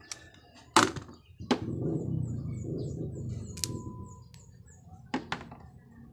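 Hand tools knocking and clicking against a wooden workbench as they are picked up and put down. A few sharp knocks, the loudest just under a second in, with rustling handling noise between them.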